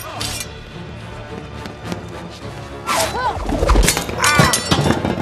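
Film soundtrack of a fight: music under a quiet stretch, then from about three seconds in a quick run of whooshes and heavy hits, one with a deep thud, and crashing impacts.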